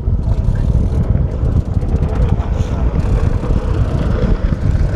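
Wind buffeting the microphone in a steady, loud low rumble, over the small outboard motor of a fishing boat running underway.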